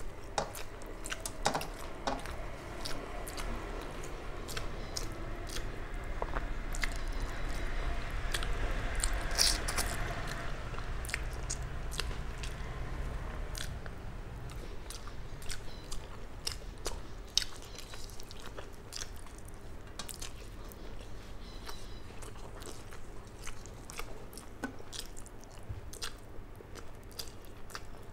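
A person chewing mouthfuls of rice mixed with hilsa fish close to a clip-on microphone, with many short, sharp mouth clicks throughout.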